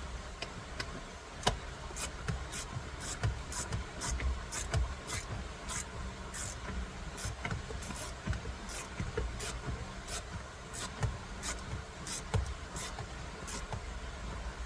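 Hand ratchet clicking in short, uneven strokes, about two sharp ticks a second, as screws are tightened on a steering wheel, with a few soft knocks of tool against the wheel.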